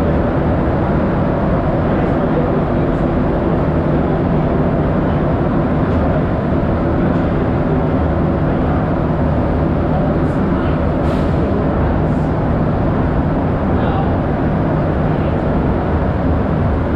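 Steady rumble of an STM Azur rubber-tyred metro train running through the tunnel, heard from inside the car, with a low hum held under it.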